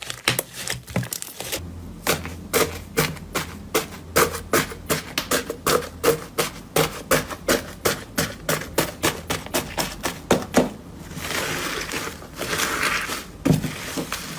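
Slime being pressed and squeezed by hand, making a fast run of sharp clicking pops at about five a second. Near the end it turns into a few seconds of continuous crackling squish.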